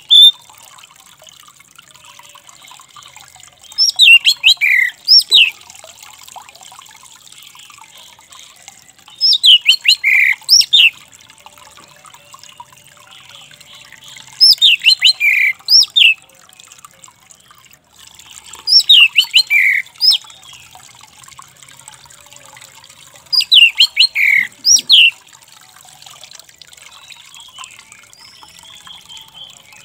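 Male orange-headed thrush (anis merah) singing: five short phrases about five seconds apart, each a quick run of loud, high notes that sweep downward.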